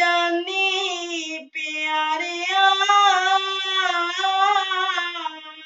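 A 14-year-old boy's high voice singing a shabad (devotional hymn) alone, with no instrument. He sings a short phrase, breaks briefly about a second and a half in, then holds a long line with a wavering pitch that fades near the end.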